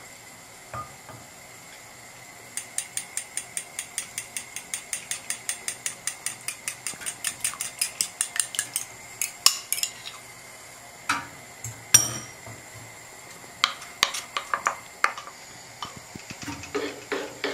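Cutlery beating matsun (yogurt) in a small bowl, clinking against the bowl about four to five times a second for several seconds. Then it turns to scattered louder clinks and knocks as the yogurt is scraped out with a wooden spoon.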